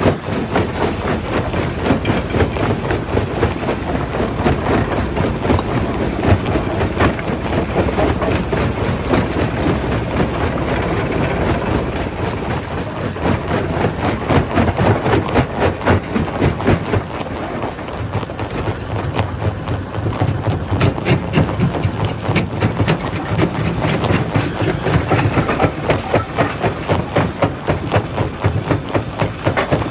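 Rock crusher running with a heavy diesel engine, stone rattling and clattering through it in a dense, continuous stream of knocks.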